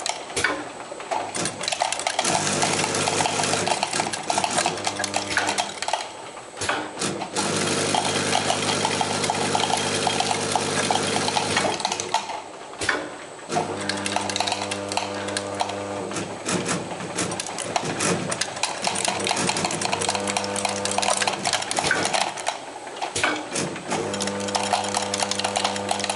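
King TB4 ATLC tablet counter running: tablets rattle and click steadily as they are fed around its rotating disc and drop through the counting chutes into plastic jars. A machine hum with several steady tones cuts in and out several times over the clatter.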